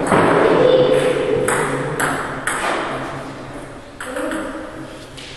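Table tennis ball being hit back and forth in a rally: sharp clicks off the bats and the table, several about half a second apart and a quick cluster about four seconds in, over a steady background murmur.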